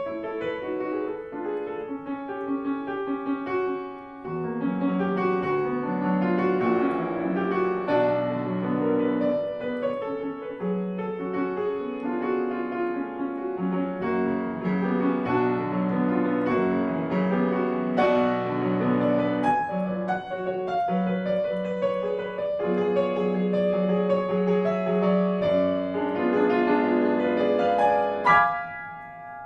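Grand piano played solo: a classical piece of quick, continuous notes over a repeating bass. A loud accented chord is struck near the end, and the sound then dies away.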